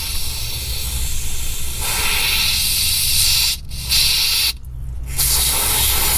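Aerosol spray can hissing through a straw nozzle into a freshly re-tapped oil-pan drain-plug hole, flushing out metal shavings. The spray gets louder about two seconds in and stops briefly twice near the middle.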